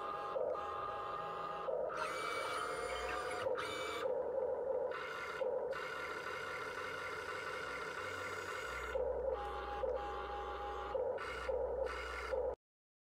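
Whine of small electric motors in short spells separated by brief breaks, stopping abruptly near the end.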